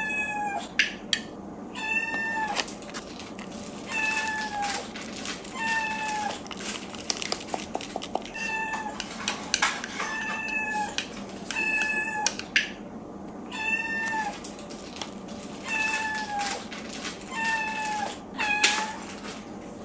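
Ragdoll kitten meowing over and over, about ten short calls each dipping slightly in pitch, one every two seconds or so: begging for breakfast while it is being prepared.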